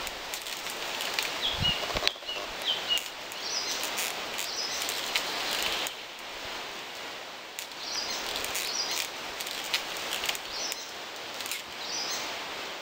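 Small songbirds chirping in short repeated phrases every second or two over a steady rustle of leaves and wind, with a few faint clicks.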